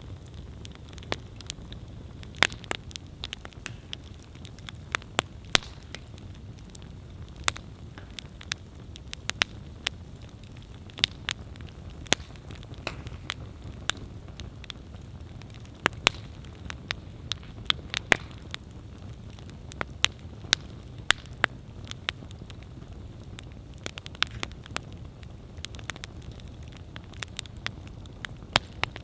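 Wood campfire burning: a steady low rush of flames with frequent sharp, irregular crackles and pops from the burning logs.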